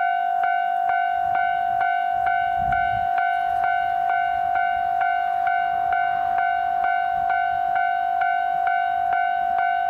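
Japanese railway level-crossing alarm ringing, a steady bell-like tone struck about twice a second. The low rumble of a train on the Nemuro Line joins from about a second in and is strongest around three seconds in.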